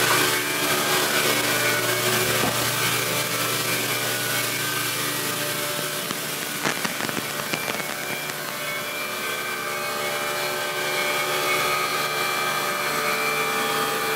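Steady machine hum with several held tones, and a few light knocks around the middle.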